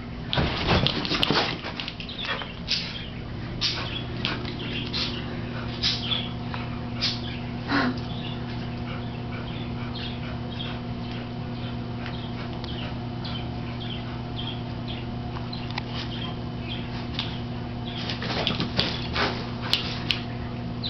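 A Maltese and a pit bull playing: scattered clicks and scuffles of their movement, thickest for the first few seconds and again near the end, over a steady low hum.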